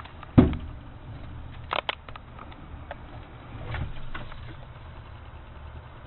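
A squirrel leaping onto a clear plastic suction-cup bird feeder on a window: one heavy thump against the feeder and glass about half a second in, two sharp clicks a little after a second and a half, and a softer bump near four seconds.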